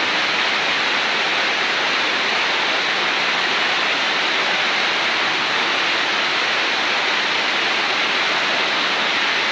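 Torrential rain and flash-flood water rushing along a street, a steady unbroken rushing noise.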